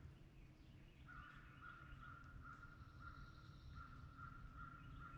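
Faint outdoor ambience in which an animal's steady, high-pitched trill starts about a second in and keeps going, pulsing gently, over a low rumble.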